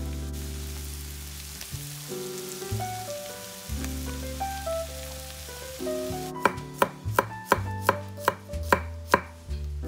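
Chef's knife slicing garlic cloves on an end-grain wooden chopping board: a run of sharp knocks, about three a second, starting some six seconds in.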